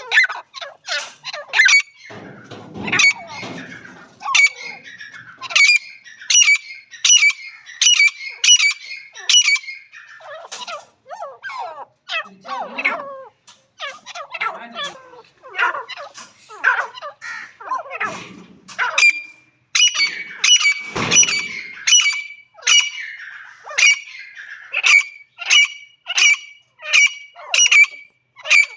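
Francolin (teetar) calling: sharp, high notes repeated about twice a second in long runs, with short breaks between them.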